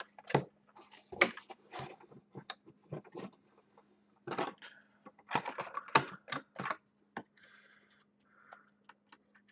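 Trading cards and rigid plastic top loaders being handled: irregular clicks, taps and plastic rustles, with a busier run of clicks a little past halfway, as a thick card is tried for a holder it will fit.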